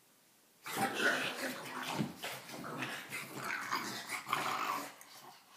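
Two pugs growling while they play-fight, starting suddenly a little under a second in and stopping near the end.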